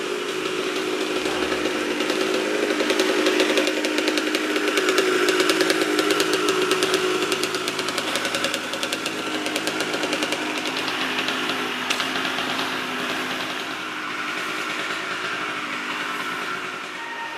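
A small engine running steadily with a rapid, buzzing firing rhythm, growing louder over the first few seconds and then easing off slowly.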